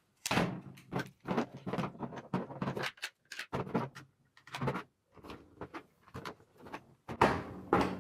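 Handling noise from a RONI polymer carbine conversion kit and an airsoft pistol being fitted together by hand: an irregular string of short plastic-and-metal clicks, knocks and rattles, with a louder cluster near the end.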